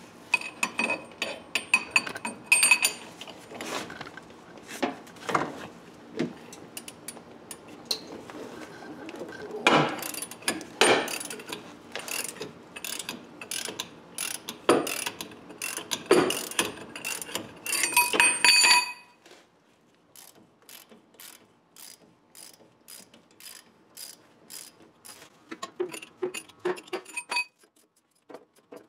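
Hand socket ratchet clicking as 15 mm bolts holding the wheel-bearing hub to the steering knuckle are worked loose, with louder metallic clicks and clanks for the first two-thirds. Then a run of quieter, evenly spaced ratchet clicks, about two a second, that stops shortly before the end.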